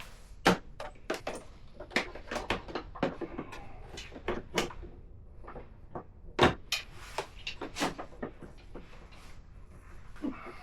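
Irregular clicks and knocks of tools and parts being handled and set down, with the two loudest knocks about half a second in and about six and a half seconds in.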